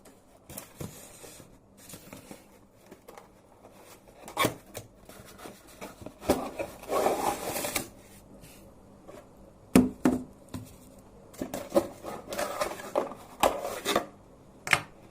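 Irregular handling noises: scattered sharp clicks and knocks, the loudest about ten seconds in, with stretches of rubbing and rustling.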